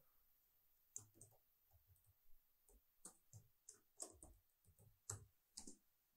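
Faint keystrokes on a computer keyboard: a string of irregular clicks as two short words are typed, with one last click near the end.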